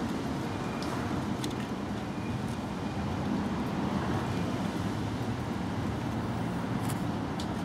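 Steady low rumbling background noise, with a few faint, brief clicks.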